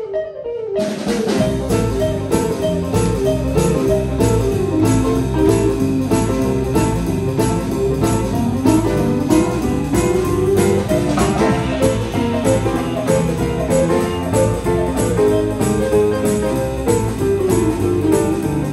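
Live jazz band playing an instrumental passage: Petrof upright piano, double bass, guitar and drum kit, with a steady beat of cymbal strokes. The band comes back in after a brief dip at the very start.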